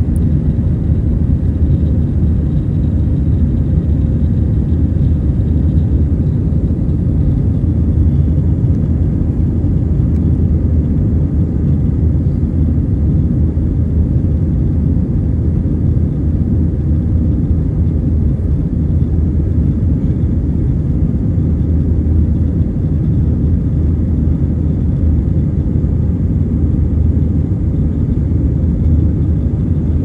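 Steady low rumble inside an airliner's cabin in flight: jet engine and airflow noise through the fuselage.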